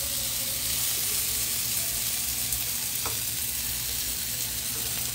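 Garlic and Cuban oregano frying in a hot pan with the fajita vegetables: a steady sizzle.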